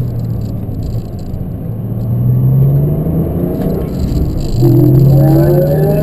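Porsche 718's 4.0-litre flat-six engine heard from inside the cabin while accelerating. Its pitch climbs, breaks and drops just before five seconds with an upshift of the six-speed manual, then climbs again, louder.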